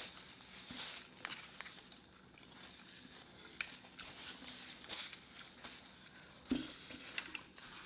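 Faint chewing and mouth sounds of people eating, with scattered small clicks and one louder knock about six and a half seconds in.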